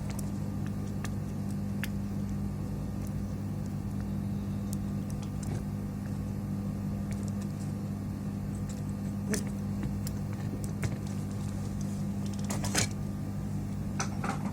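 Steady low electrical hum from the workbench, with a few sharp clicks and taps of small parts and tools being handled.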